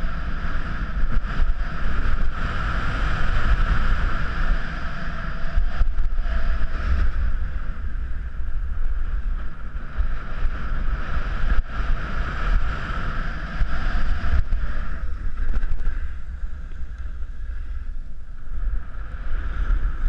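Wind buffeting the microphone of a downhill skier's camera, a heavy low rumble, with the steady hiss of skis sliding over snow.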